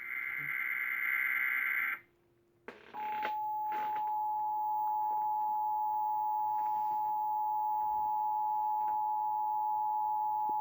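Emergency Alert System tones for a Child Abduction Emergency: the end of a warbling SAME data-header burst, a second's pause, then the steady two-tone attention signal held for about eight seconds.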